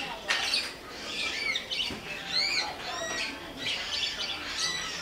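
Caged pet-shop birds chirping and squawking over one another: many short arched chirps and calls overlapping throughout.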